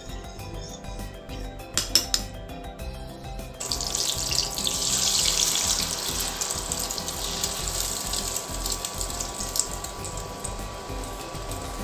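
A spoon clicks against a bowl while beaten egg is stirred. About four seconds in, the egg mixture hits a hot oiled frying pan and sizzles loudly, the sizzle easing off slowly as it fries.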